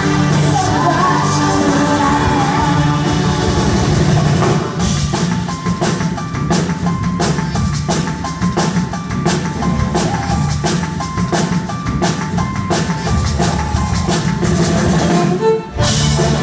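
Live band playing at a concert, heard from the audience. Full, sustained music at first, then from about five seconds in a steady drum beat with a short repeating keyboard-like note; the music drops out briefly near the end before the band comes back in.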